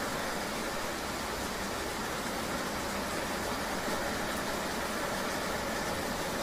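Steady rain ambience with road noise, as on a ride in the rain: an even, unbroken hiss with a low rumble underneath.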